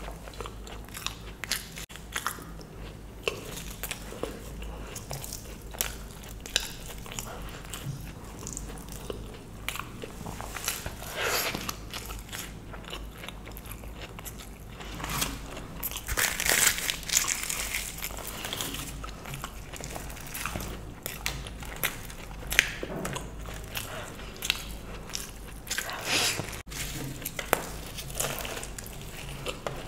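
Close-miked chewing and biting of luchi (deep-fried puffed bread) soaked in spicy aloo dum potato curry: a run of irregular small mouth clicks, louder for a stretch around the middle.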